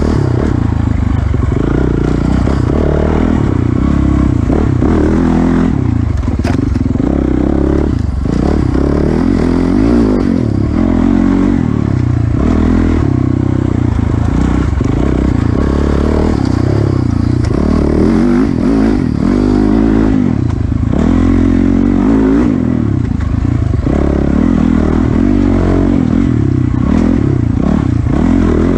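Enduro dirt bike engine revving up and down over and over as the bike is ridden hard along a tight trail, heard close up from the rider's helmet.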